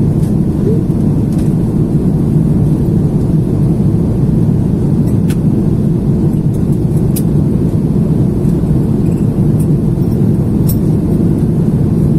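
Airbus A330 cabin noise during takeoff: a loud, steady low rumble of jet engines and rushing air, heard from inside the passenger cabin.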